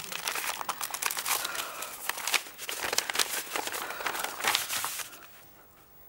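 Paper rustling and crinkling as an envelope is opened and the folded documents inside are pulled out and unfolded, for about five seconds, dying away near the end.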